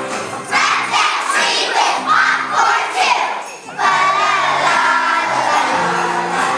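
A large group of young children singing loudly together over backing music, with a short break between phrases about three and a half seconds in.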